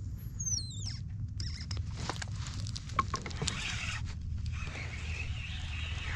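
A few high, squeaky chirps falling in pitch in the first second, then water sloshing and splashing close by, with small clicks and knocks throughout.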